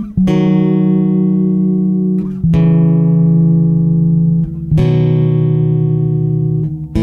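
Background music of slow, sustained tones, each held for about two and a half seconds before shifting to a new pitch.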